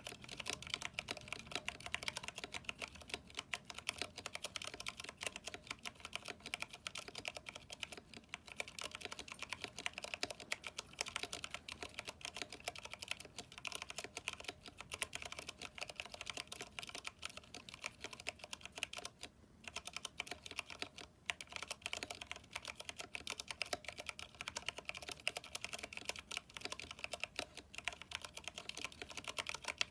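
Fast, continuous typing on a Vortex 10th Anniversary Edition mechanical keyboard with Cherry MX Brown switches, PBT keycaps and lubed stabilizers. Keys click and clack in a steady stream, with two short pauses a little past the middle.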